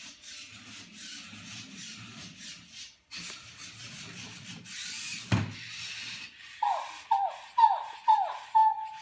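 Rubbing and scraping noise with a single sharp knock a little past halfway, then a Zoomer robot toy monkey's electronic call: five quick falling notes followed by a held note near the end.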